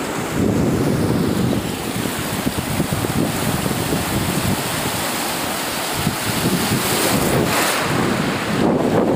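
Shallow sea waves washing and splashing over rocks and around the feet, with wind buffeting the microphone.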